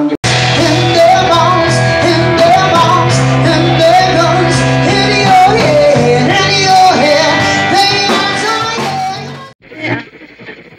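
Live rock band playing: a female vocalist singing over electric guitars and bass guitar. The music cuts off suddenly about nine and a half seconds in.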